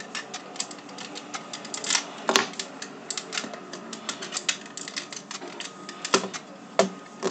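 Irregular small clicks and taps of a screwdriver and loose parts against a pistol frame being taken apart by hand, with a few louder knocks around two seconds in and again near the end.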